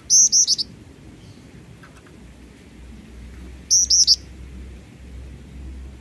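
Jingjing batu (black-winged flycatcher-shrike) calling twice, each time a quick run of three or four sharp, high, bending notes lasting about half a second. The two calls come about three and a half seconds apart.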